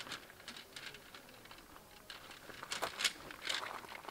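Tent fabric rustling and crinkling as it is handled, mixed with shoes scuffing and crunching on gravel, in short scattered scrapes with a quieter stretch about a second in.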